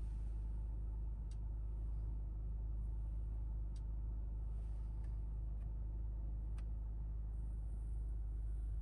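2023 Mercedes-AMG C43 at a steady pace, its engine and tyres giving an even low rumble inside the cabin, with a few faint clicks.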